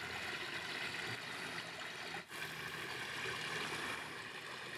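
Water trickling steadily through a small sluice gate in a garden pond channel, dipping briefly about two seconds in.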